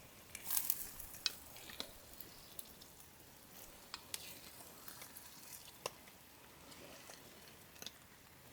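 Food sizzling faintly in a skillet, with scattered sharp clicks and taps of a utensil against the pan; the loudest cluster of clicks comes about half a second in.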